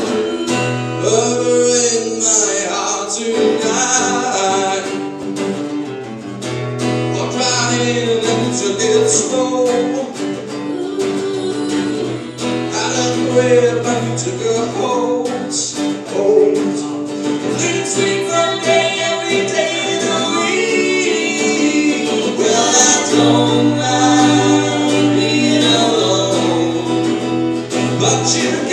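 A man singing a song to his own strummed acoustic guitar, performed live.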